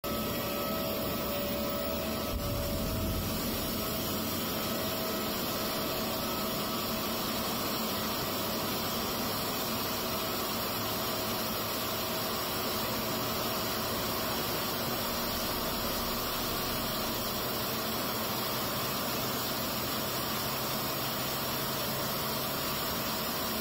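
Airliner turbofan engine running steadily, a constant rushing noise with a faint whine over the first few seconds.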